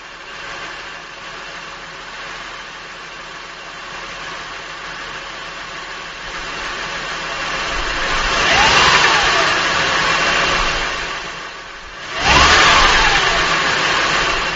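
2005 Acura TL's 3.2-litre V6 running, picked up from under the front wheel well, revved up and back down twice, about eight and twelve seconds in. Under it is the knock the owner hears after a cold start, which the dealer and Acura put down to normal valve-train noise.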